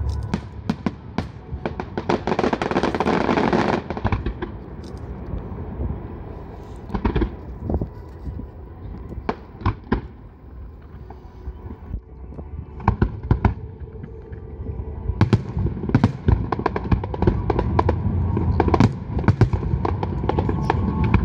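Fireworks display: aerial shells bursting with sharp bangs and crackling. A dense crackle comes about two to four seconds in, the bangs thin out around the middle, and rapid volleys of bangs follow in the last third.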